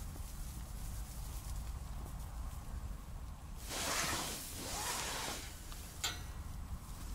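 Rustling of clothing and fabric for about a second and a half midway, in two swells, followed by a single sharp click, over a low steady rumble.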